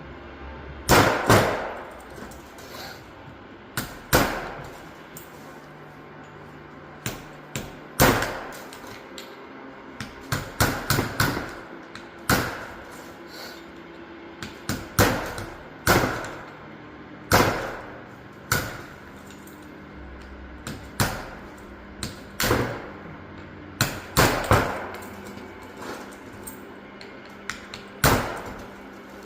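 A hammer striking metal parts of a limited-slip differential carrier being taken apart, about twenty sharp, ringing blows at uneven intervals, some in quick runs of three or four. A faint steady hum runs underneath.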